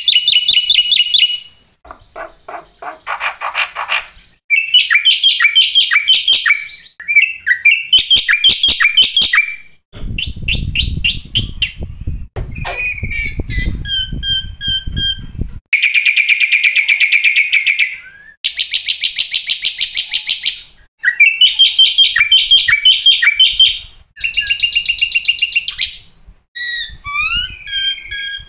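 Black-winged myna (jalak putih) song: a long run of varied phrases, with rapid trills, harsh chatter and repeated whistled notes, separated by short pauses. A low rumble sits under the chatter from about a third of the way in to about halfway.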